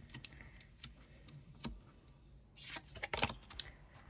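Tarot cards being handled: a few light taps, then a quick run of crisp snaps and rustles in the last second and a half as cards are shuffled and drawn.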